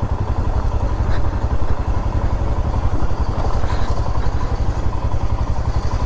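Motorcycle engine running at low speed, a steady low pulsing, as the bike rolls slowly over a gravel parking lot.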